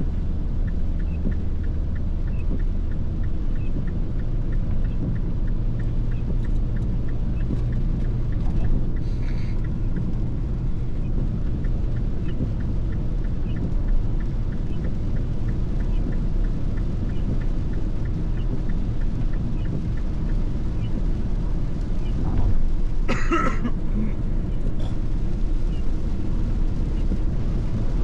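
Cabin noise of a MINI Clubman (R55) being driven: a steady engine and road rumble, the engine note shifting about three seconds in. A brief rush of noise comes a few seconds before the end.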